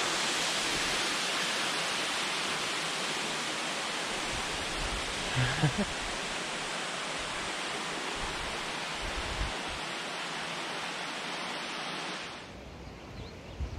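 Rushing water of a waterfall pouring down a roadside cliff, a steady hiss that slowly fades and then drops away sharply near the end. A brief low sound about five and a half seconds in.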